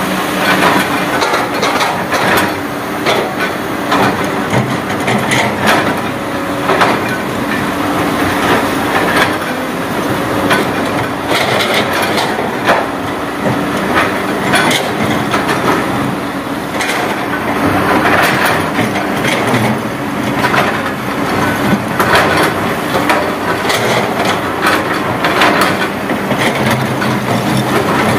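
Hyundai 220 crawler excavator's diesel engine running steadily under load while its steel bucket scrapes and knocks against a rock face, with irregular clattering of loose rock throughout.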